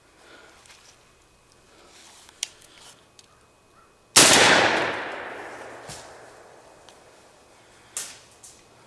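A single shot from a Benelli M2 semi-automatic shotgun about four seconds in: a sharp blast followed by a long echo that fades over about three seconds.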